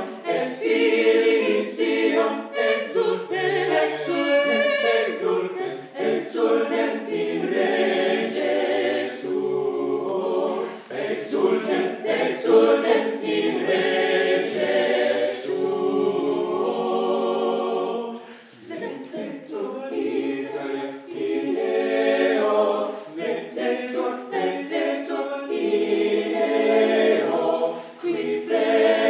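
Small mixed choir of women's and men's voices singing a cappella, with a brief pause between phrases about two-thirds of the way through.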